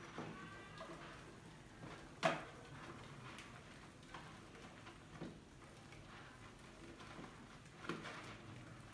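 Scattered faint clicks and taps of rodents scrabbling over and against a plastic jar trap, with one sharper click about two seconds in and another near the end.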